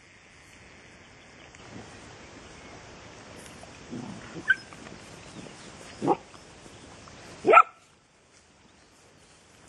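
Young dogs play-fighting, with three short barks about four and a half, six and seven and a half seconds in, each louder than the last.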